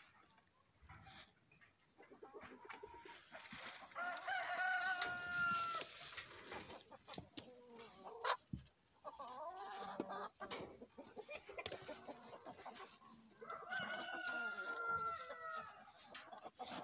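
A rooster crowing twice, each crow about two seconds long, about four seconds in and again near the end. Chickens cluck in between, over scattered clicks and knocks.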